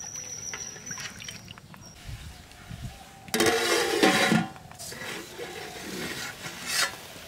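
A spoon stirring and scraping through wet spice paste in a cooking pot, with a louder scrape and slosh a little over three seconds in that lasts about a second. A faint steady high tone sounds during the first two seconds.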